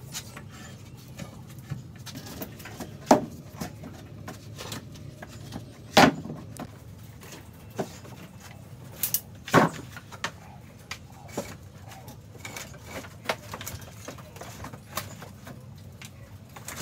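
Wooden logs and timber knocking and clunking as they are shifted by hand and set down on a wooden table: scattered sharp knocks, a few much louder than the rest, over a faint steady low hum.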